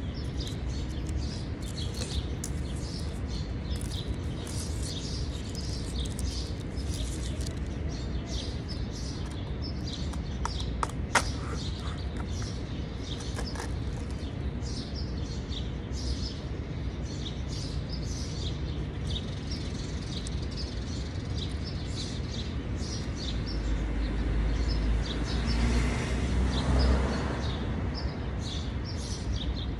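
Small birds chirping in short, repeated calls over a steady low street hum. A single sharp click sounds about a third of the way in, and a low rumble swells and fades a few seconds before the end.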